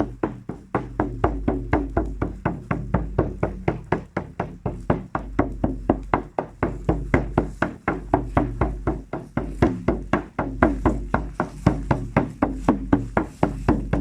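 A drum beaten in a steady, even rhythm, about four strokes a second.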